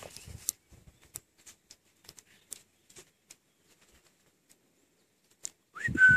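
Faint, scattered ticks and rustles of a horse stepping and grazing on muddy ground. Near the end comes a short, much louder sound that includes a brief high tone.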